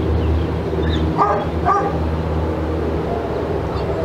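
Two short dog barks, about half a second apart, a little over a second in, over a steady low hum.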